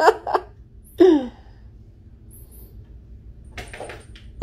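A person's short exclamation with falling pitch about a second in, like a gasp, then a brief rustle near the end.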